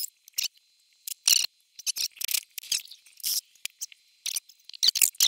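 Light, irregular clicks and rattles of the EV charger's plastic charging connector and cable being handled and lifted off the charger.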